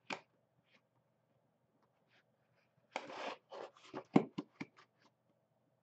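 A knife cutting through the tape seal on a cardboard box: a click as it starts, a short scraping tear about three seconds in, then several sharp taps and clicks of the blade against the cardboard.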